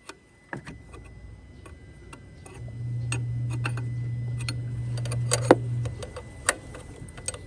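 Engine switched off: scattered sharp clicks and ticks around the truck, with a steady low hum that starts about two and a half seconds in and stops about three seconds later.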